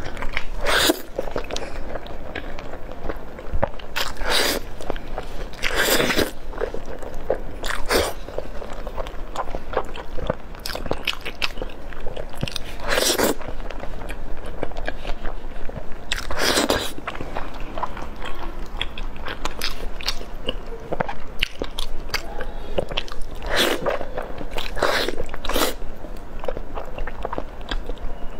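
Close-miked eating of braised beef tendon: continuous chewing and mouth sounds, with a louder bite or suck every few seconds.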